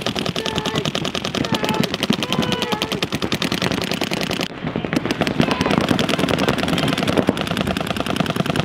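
Paintball markers firing in rapid, overlapping streams during a tournament point: a dense, continuous rattle of shots with no break, thinning briefly about halfway through.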